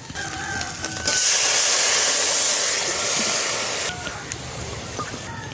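Water poured into a hot kadai of fried fish and cooking spice paste: the pan erupts in a loud, steady hiss for about three seconds, then settles back to a quieter sizzle.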